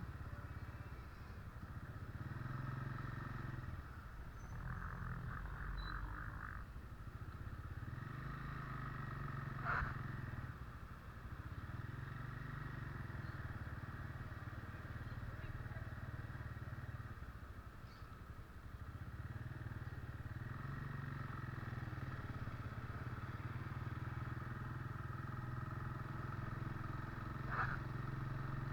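Vehicle engine running steadily while on the move, its note easing off and picking up again several times. Two brief sharp clicks sound, one about ten seconds in and one near the end.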